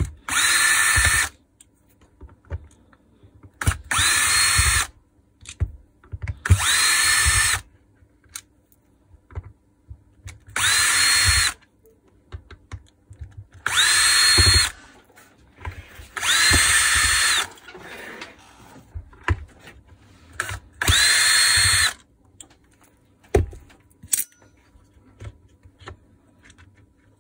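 A compact Makita cordless drill/driver runs in seven short bursts of about a second each, backing out the self-tapping screws that hold a plastic drill housing together. Each burst opens with a motor whine that rises and then holds steady. Small clicks come between the runs.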